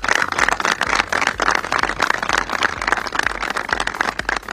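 A crowd applauding: many hands clapping in a dense, steady patter.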